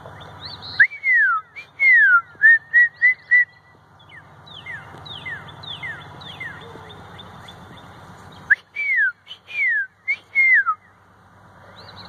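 Whistled imitation of a northern cardinal's song: loud, clear down-slurred whistles, then a quick run of five short notes. A second bout of down-slurred whistles comes about eight seconds in, with fainter down-slurred notes in between.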